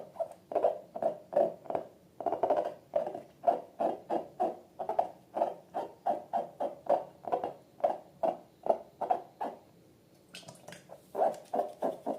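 Slime being squeezed and worked by hand, making quick squelching pops, about three a second, with a short pause near the end before a few more.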